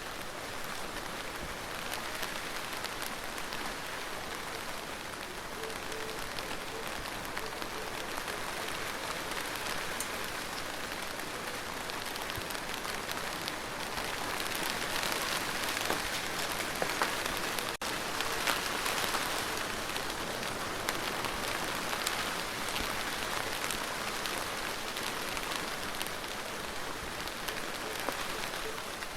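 Steady rain falling, an even hiss with scattered individual drop ticks. It grows a little heavier about halfway through, with a momentary dip in the sound just after.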